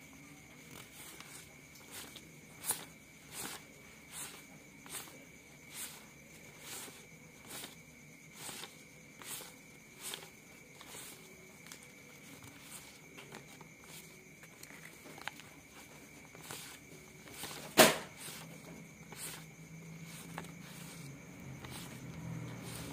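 US hundred-dollar bills being counted by hand: each note is flicked off the stack with a short papery snap, about once a second. One snap, about three-quarters of the way through, is much louder than the rest.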